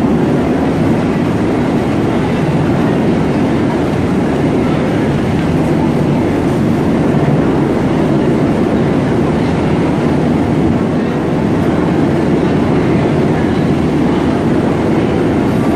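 U.S. Coast Guard rescue helicopter hovering overhead: steady, loud rotor and turbine noise.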